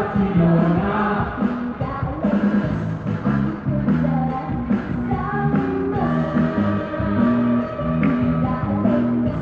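A woman singing a pop-rock song into a handheld microphone, amplified over backing music with a steady beat and a moving bass line.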